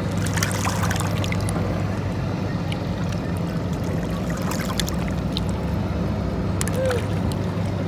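A steady low engine hum, like a small boat's motor, with scattered light clicks and splashes and a brief squeak about seven seconds in.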